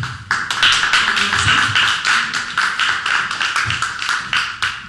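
A congregation clapping: a dense patter of many hand claps that eases off near the end.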